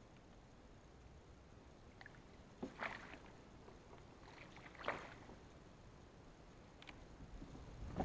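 Faint water splashes and sloshing over a low steady hiss, two clearer splashes about two seconds apart near the middle.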